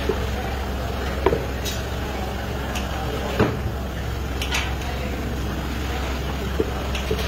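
Wooden rolling pin rolling out chapati dough on a floured wooden board, with a few light knocks of the pin against the board, over a steady low background hum.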